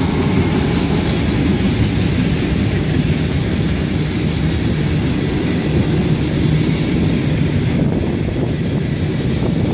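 Freight train cars rolling past on the track: a steady, unbroken rumble with a hiss over it.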